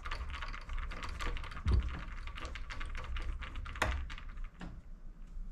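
A quick run of light, dry clicks and taps from small hand work on metal and plastic as the tiny screw and spacer are taken out of a PS5's M.2 SSD expansion bay. The clicks are dense for about four seconds, with one sharper click near the end of that run, then thin out.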